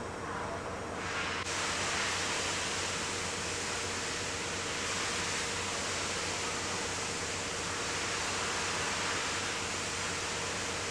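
Steady hiss from a fuel valve atomization test rig, starting abruptly about a second and a half in over a low, steady hum.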